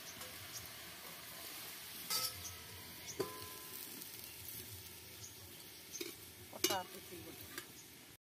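Steady sizzle of food frying in a pan on a wood-fired stove, with a few sharp metal clinks of utensils against pans that ring briefly, the loudest about two-thirds of the way through.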